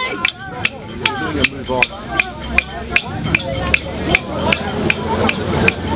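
Steady rhythmic knocks, about two and a half a second, with voices underneath.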